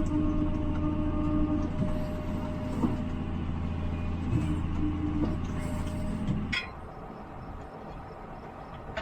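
Tractor engine running at a steady drone, which stops abruptly about six and a half seconds in, leaving a quieter rushing background.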